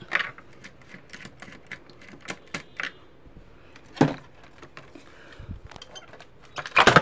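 Screwdriver work and handling on a home-theatre tower speaker as it is taken off its stand: scattered light clicks and clinks, a louder knock about four seconds in, and a clatter near the end.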